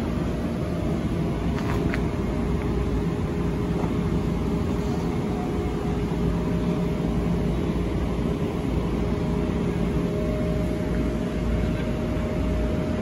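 Metro-North electric train standing at the platform, its onboard equipment giving a steady hum with several steady tones over a low rumble; one tone grows stronger near the end.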